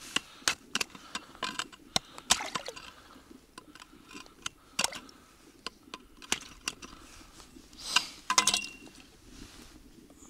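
Steel ice chisel chopping through a thin crust of ice refrozen overnight over a fishing hole: sharp clinking strikes, several a second for the first couple of seconds, then scattered clinks of broken ice, with a louder clatter near the end.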